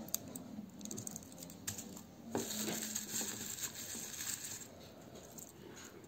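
Garlic cloves being peeled with a small knife over a bowl: dry, papery garlic skins crackle and rustle, with small clicks and scrapes of the knife on the clove. The crackling is busiest in the middle.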